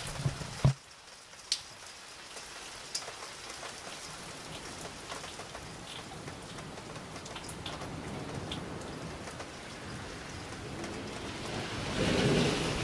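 Steady rain falling in a thunderstorm, with single drops tapping close by. A sharp knock comes about a second in, and a low rumble of thunder swells near the end.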